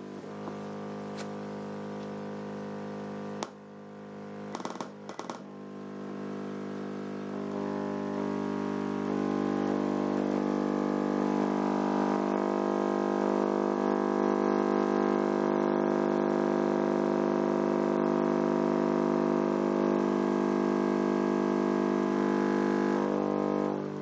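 Car subwoofer in a sealed box playing a steady 50 Hz test tone at high volume, heard as a hum with many overtones. About three and a half seconds in it drops briefly with a few clicks, then gets louder in steps over the next several seconds and holds steady before falling away near the end.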